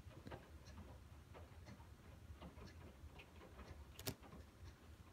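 Faint, irregular ticking of raindrops dripping outside, over a low steady hum, with one sharper click about four seconds in.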